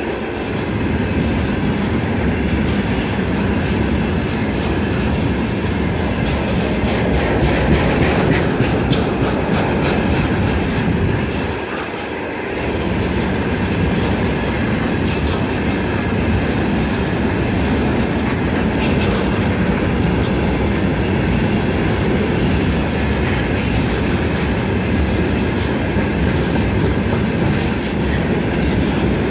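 Railway tank cars of a freight train rolling past: a steady rumble of steel wheels on the rails, with clicks as wheels cross rail joints and a short dip in the noise about twelve seconds in. A few faint high squeals of wheels on rail come in the second half.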